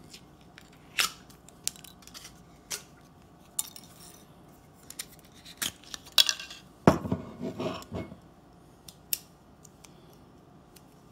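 Foil capsule on a wine bottle being cut and worked off with the small blade of a waiter's corkscrew: a string of small clicks and scrapes, with a louder bout of scraping and crinkling about six to eight seconds in.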